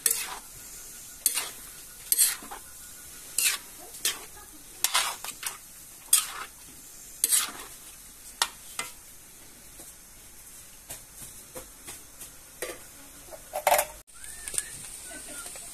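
Metal spoon scraping and clinking against a steel wok, about once a second at an irregular pace, while stirring frying ground meat, corn and mushrooms, with a faint sizzle underneath. The stirring stops abruptly near the end.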